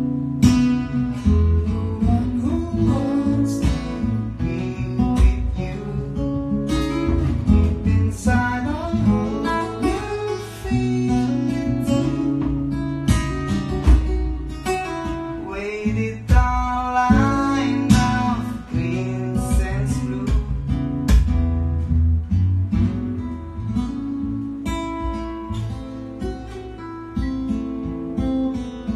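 Acoustic guitar strummed through a song, chords ringing with a steady rhythm of strokes.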